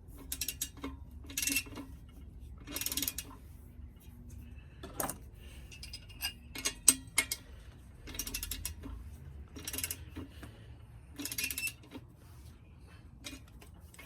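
Ratchet wrench clicking in short bursts, about six times, as a nut is run down and tightened on a vise mounting bolt.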